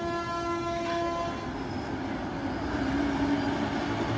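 A vehicle horn blares for just over a second, briefly broken partway through, then stops. A steady background rumble runs throughout.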